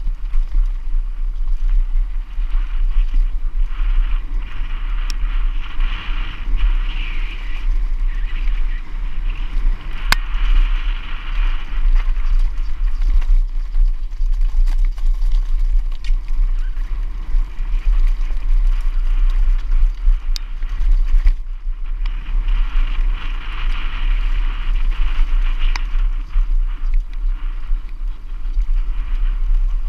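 Wind buffeting the microphone of a camera on a mountain bike riding down a rough dirt trail, with the rattle and scattered sharp knocks of the bike over the ground.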